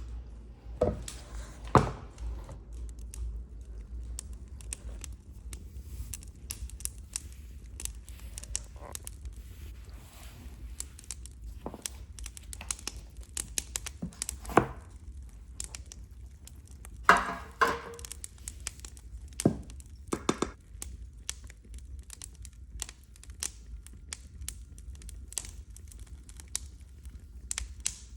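Irregular handling noises: crinkling and rustling with scattered taps and knocks, a few louder knocks near the start and a cluster of them in the middle, over a faint steady low hum.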